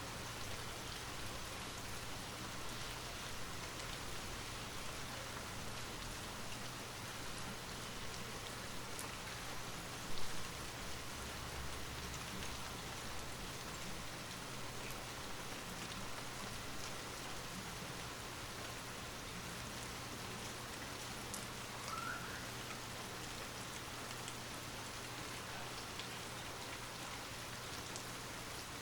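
Light rain falling steadily: an even hiss scattered with faint drop ticks. A single dull thump about ten seconds in is the loudest moment.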